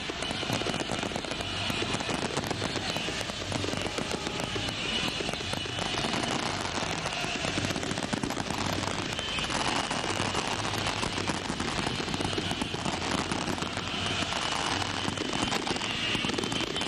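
Fireworks crackling and popping over the steady noise of a large stadium crowd.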